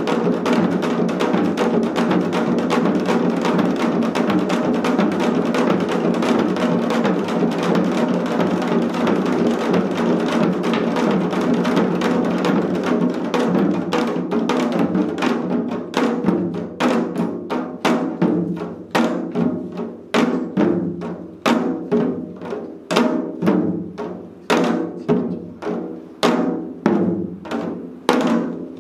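Ensemble of four janggu (Korean hourglass drums) played together: a dense, fast stream of strokes for about the first half, then thinning into separate strokes that slow down toward the end.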